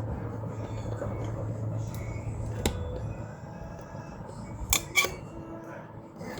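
Handling noise from the recording phone or camera being moved and propped into place: rubbing and clatter with a sharp knock about two and a half seconds in and two more close together near five seconds.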